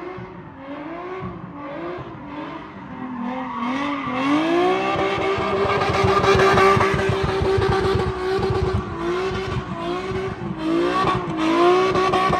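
A car doing donuts: its engine is revved hard while the rear tyres screech. For the first few seconds the pitch swings up and down about once a second. From about four seconds in it is held high and steady and gets louder.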